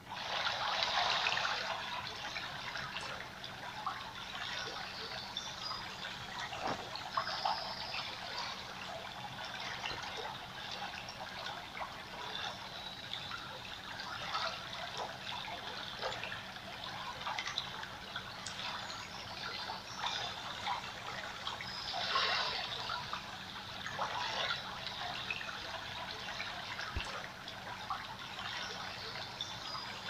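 Water trickling, with many small drips and splashes.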